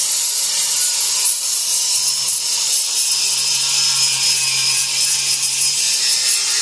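Angle grinder with an abrasive disc grinding across a CNC-cut metal sign, a steady harsh rasp over the motor's hum, cleaning off slag and burrs. The motor note drops slightly about two seconds in as the disc bears on the work.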